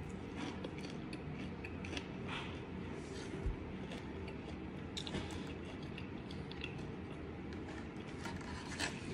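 Quiet chewing of a crispy breaded fried chicken strip, with a few faint crunchy clicks over a steady low hum.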